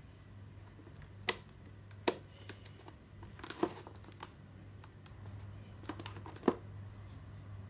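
A boxed toy's cardboard-and-plastic packaging handled by hand: a scattered series of sharp clicks and taps, the loudest about six and a half seconds in, over a low steady hum.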